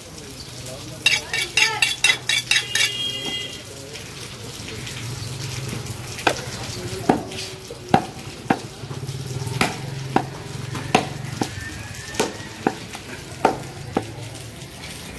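A butcher's blade chopping beef on a wooden log block: sharp knocks against the wood, a quick flurry of strokes a second or so in, then single chops about every half second to a second.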